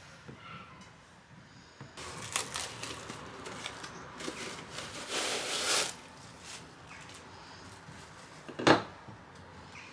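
Plastic cling film being pulled off its roll and stretched over a tart pan: a crackling rustle for about four seconds, densest just before the middle. A few faint taps of a fork on the pastry come first, and one sharp crack near the end is the loudest sound.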